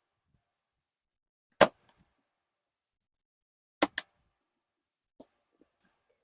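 Sharp clicks of the metal clasps on a Hogwarts luggage trunk being opened: one about a second and a half in, then two quick clicks close together near the middle.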